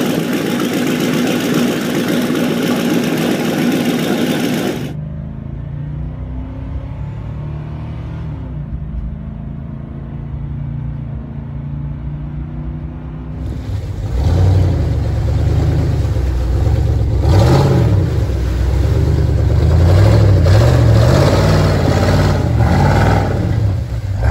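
GM Vortec 8100 8.1-litre V8 running. First it runs on an engine stand. From about five seconds in it is a duller drone heard from inside the truck's cab, its pitch stepping up. From about halfway it is loud again, revving up and down several times as the pickup churns through mud, with knocks and clatter mixed in.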